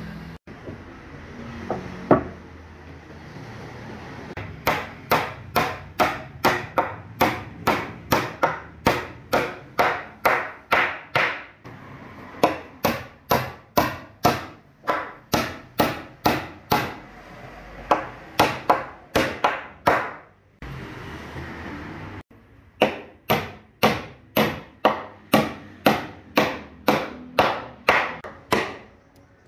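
A steel claw hammer driving nails into a thick solid-wood plank, striking about twice a second in runs of several seconds with short pauses between them. A single louder knock comes about two seconds in.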